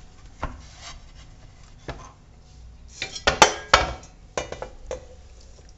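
Metal roasting tray and enamel pot knocking and clattering against each other as roasted vegetables and juices are tipped from the tray into the pot. There are scattered knocks, with a loud cluster of several knocks a little past the middle.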